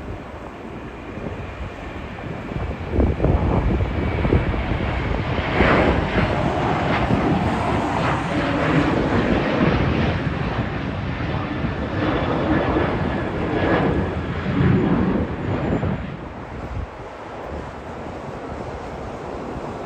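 Boeing 737-900's CFM56 turbofan engines at takeoff thrust as the jet passes, a steady jet roar that swells, holds loud and then falls away near the end.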